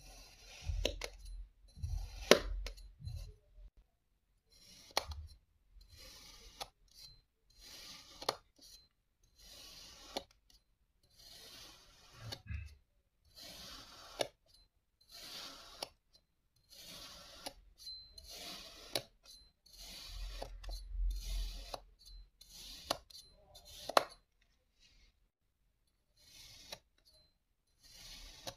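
A thin knife blade slicing through kinetic sand: repeated short, grainy cuts about once a second, a few of them ending in a sharp tick.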